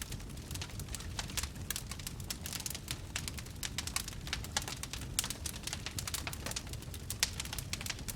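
Fire crackling: a dense, irregular run of sharp pops and snaps over a steady low rumble.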